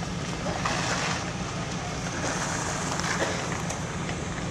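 Steady outdoor background noise with a low steady hum underneath and a few faint ticks.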